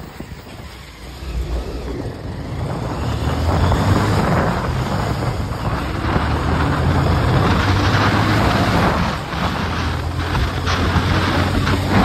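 Moving road vehicle's engine running with a steady low drone and rushing wind noise. The sound grows louder over the first few seconds, then holds steady.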